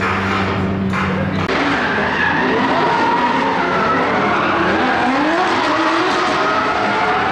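Several drift cars sliding through a corner together: their engines rev up and down over continuous tyre squeal. The car sound takes over about a second and a half in.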